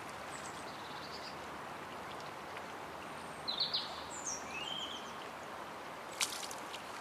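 Steady rush of shallow river water flowing. About halfway through, a few short high bird chirps, and a single sharp click shortly before the end.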